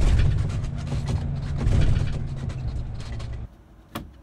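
Motorhome driving, a loud low engine-and-road rumble with scattered rattles, cutting off abruptly about three and a half seconds in. A single sharp click follows near the end.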